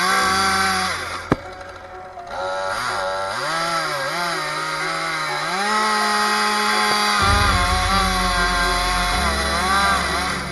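Chainsaw running hard, its pitch dipping and rising as it cuts into pine wood, over background music.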